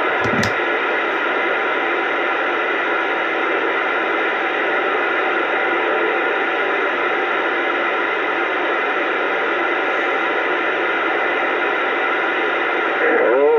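CB radio speaker putting out steady, loud static hiss on the AM 11-meter band, with faint steady whistle tones mixed into it. A short click comes just after the start, and an echoing voice breaks in at the very end.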